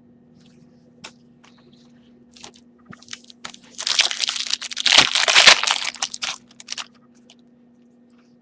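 Foil trading-card pack wrapper being torn open and crinkled, a dense crackling burst about halfway through, after a few light clicks of handling. A steady low hum runs underneath.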